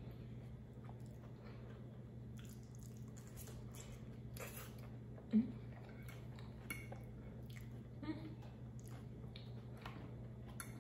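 Chewing and mouth sounds of a person eating a chimichanga, with scattered small clicks of a fork against a plate, over a steady low hum. A brief, louder low sound comes about halfway through.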